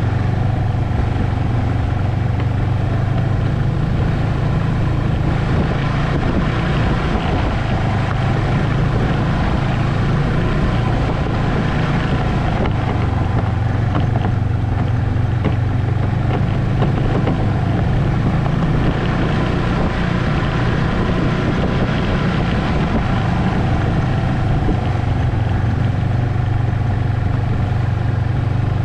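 Ski-Doo Expedition SE snowmobile engine running steadily at cruising speed as the sled travels along a snowy trail.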